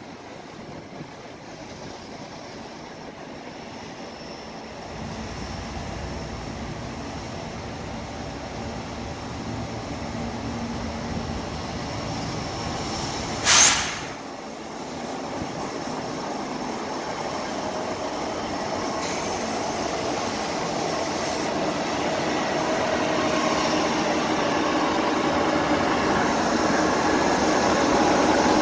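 CN freight train led by diesel locomotives approaching and passing close by: engine rumble and wheel noise grow steadily louder. A brief, sharp burst of hiss cuts through about halfway.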